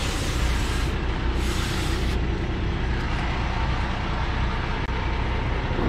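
Kenworth T880 dump truck's Cummins diesel engine idling steadily, heard from the rear of the truck, with two short hisses in the first two seconds.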